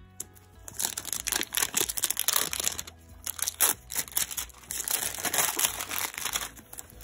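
Plastic shrink wrap crinkling and crackling as it is peeled and pulled off a box, in irregular bursts with a short pause about three seconds in.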